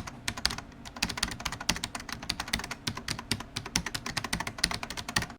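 Rapid, irregular clicking, many clicks a second, like fast typing on a keyboard.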